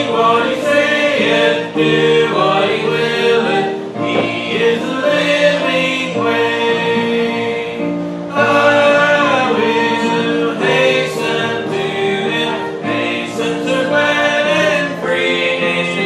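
Church congregation singing a hymn together with instrumental accompaniment, many voices holding long notes.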